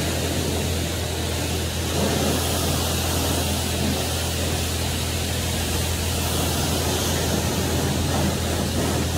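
Self-serve car wash pressure wand spraying water onto a pickup truck: a steady hiss of spray over a constant low hum.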